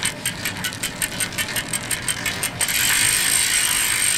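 Bicycle freewheel ratchet clicking as the wheel spins, the pawl clicks quickening until they run together into a continuous buzz about two and a half seconds in.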